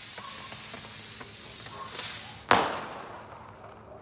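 Consumer 'helicopter' fireworks hissing as they spin, with small crackles. About two and a half seconds in comes one sudden loud burst, which fades into hiss.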